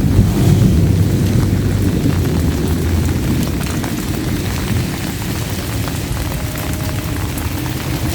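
Steady rain with a long, low rumble of thunder that slowly dies away.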